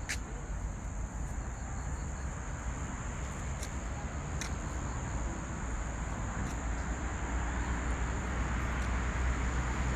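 Outdoor ambience: a low rumble that grows louder toward the end, over a thin, steady high-pitched tone, with a few faint clicks.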